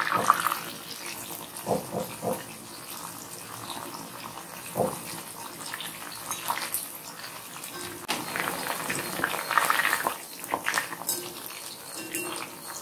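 Soya chunks deep-frying in hot oil, with a steady sizzle, and a wire spider skimmer clinking and scraping against the iron kadai as the pieces are turned over, in short knocks every second or two.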